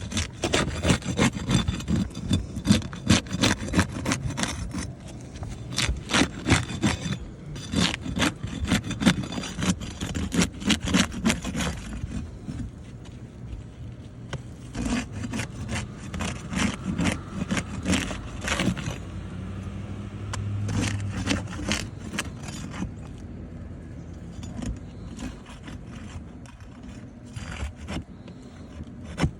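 A tool scraping and knocking against a roof shingle as its nails are worked out. There is a quick run of short scrapes and knocks for about the first twelve seconds, then they come more sparsely.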